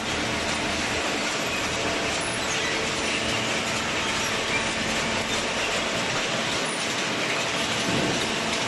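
High-speed hydraulic baler for old corrugated cardboard (OCC) running: a steady, dense mechanical clatter with a low hum underneath.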